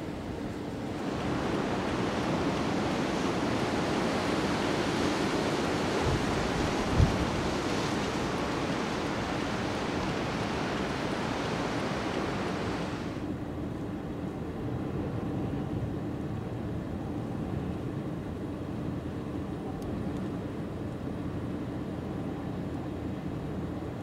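Strong storm wind rushing and buffeting the microphone, a hissing gust that holds for about twelve seconds with a sharp thump about seven seconds in, then drops to a lower, duller rumble of wind.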